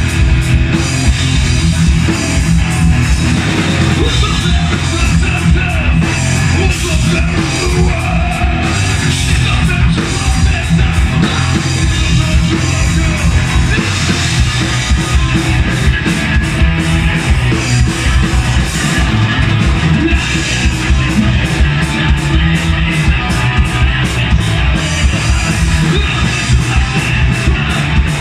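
A rock band playing live at full volume: electric guitars, bass and drum kit in a dense, steady wall of sound, with cymbal and drum hits keeping a steady beat.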